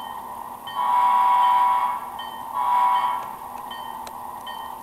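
Sound decoder of an HO scale DCC model Alco RS3 diesel locomotive playing its bell, ringing steadily through its small speaker, while the horn sounds one long blast and then a short one.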